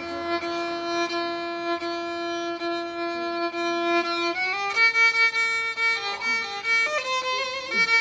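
Solo violin improvising in Turkish folk style: one low note is bowed and held for about four seconds, then the melody steps up to a higher held note ornamented with short slides and turns.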